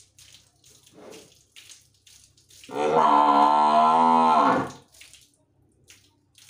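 Murrah buffalo calling: one long moo of about two seconds, starting near the middle, its pitch dropping as it ends. A few faint clicks come before it.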